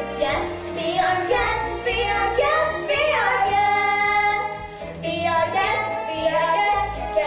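Young girls singing a show tune over a recorded musical accompaniment.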